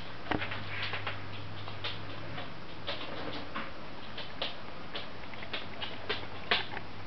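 Tibetan terrier puppies' claws clicking and scrabbling on a ceramic tile floor as they wrestle: scattered light irregular ticks, with a sharper click near the end.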